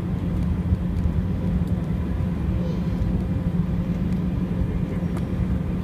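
Cabin noise inside an Embraer 190 jet airliner taxiing: a steady low rumble with a constant hum from the engines and cabin systems.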